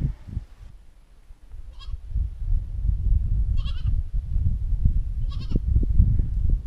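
Goat bleating three times, short calls about two seconds apart, over a low wind rumble on the microphone.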